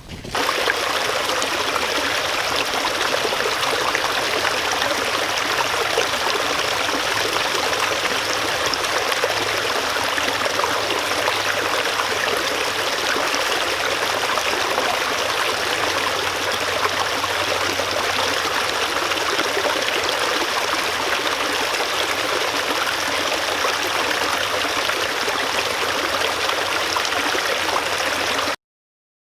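Stream water flowing steadily and evenly, cutting off suddenly near the end.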